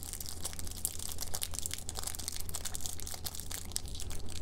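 Clear plastic sleeve crinkling and crackling as a fountain pen is slid and worked out of it, a continuous run of small irregular crackles.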